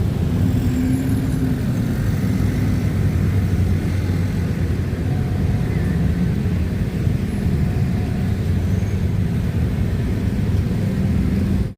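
Steady low rumble of heavy vehicle engines with a constant deep hum.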